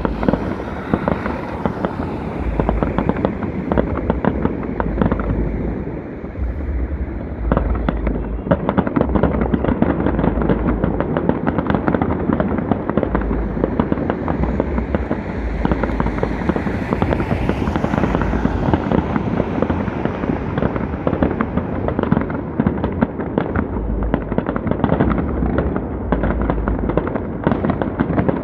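Aerial firework shells bursting in quick succession: a dense, unbroken stream of bangs and crackles.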